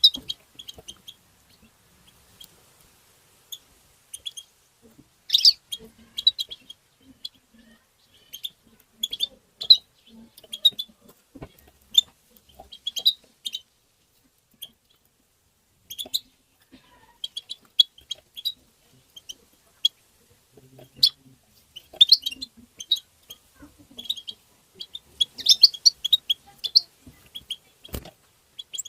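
European goldfinch giving short chirping call notes in quick, scattered clusters, getting busier near the end. A single sharp knock sounds shortly before the end.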